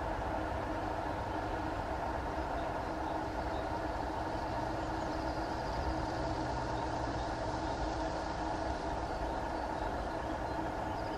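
Steady low mechanical rumble with a constant hum, the sound of running rail or road traffic.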